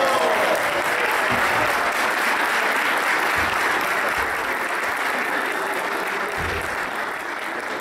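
Audience applauding, a dense steady clapping that slowly dies down.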